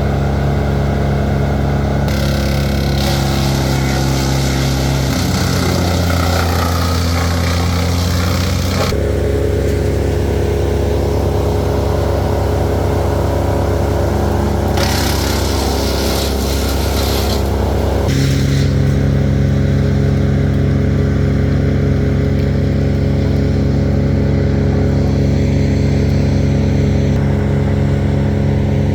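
Chainsaw engine running steadily, its pitch shifting several times as the load changes, with stretches of hiss while it cuts.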